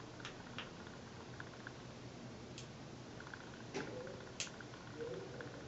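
Faint, scattered clicks and taps from pressing the power buttons and handling the Snap-on BK video scope's base unit and imager handle while switching it off; the two sharpest clicks come a little past halfway.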